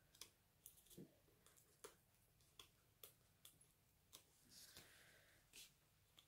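Near silence with faint small clicks and a soft rustle about five seconds in: hands handling a cardstock circle and foam adhesive dots.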